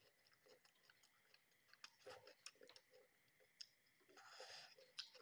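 Faint close-up chewing and lip-smacking of a person eating a curry meal by hand, a scatter of small wet clicks, with a brief breathy hiss about four seconds in.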